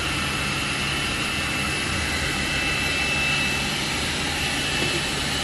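Steady running noise of a turret slitter-rewinder and its ancillary machinery: a low hum under an even mechanical hiss, with a thin, steady high whine.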